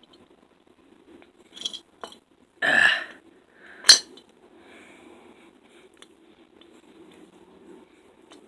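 Small metal engine parts clinking and rattling as they are handled during a small-engine teardown: a light clink, then a loud rattling scrape about two and a half seconds in and a sharp metallic clink a second later, over a faint low hum.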